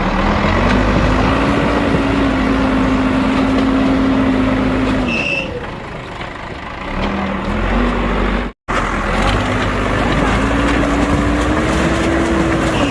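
Heavy diesel engine of a bulldozer working, revving up and holding under load, easing off about five seconds in, then revving up and holding again.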